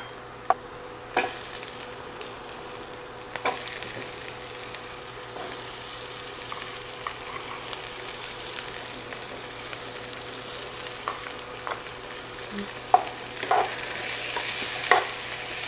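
Diced onions and green bell peppers sizzling in hot oil in a skillet, with a wooden spatula stirring and now and then clicking against the pan. The sizzle grows louder near the end.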